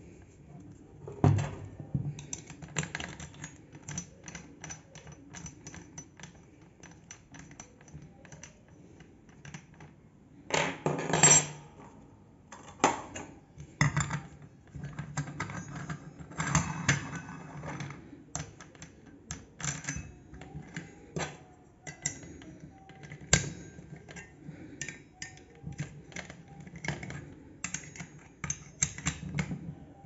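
Irregular clicks, taps and light metallic clinks as an angle grinder's spindle, a toothed saw blade and a quick-release flange lock nut are handled and fitted together by hand, with a louder rattling clatter near the middle.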